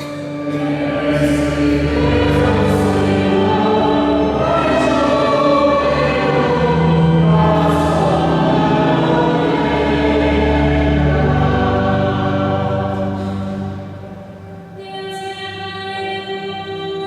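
Youth choir singing a Portuguese psalm refrain, accompanied by organ. The full choir sound thins out about three seconds before the end, leaving steadier held tones.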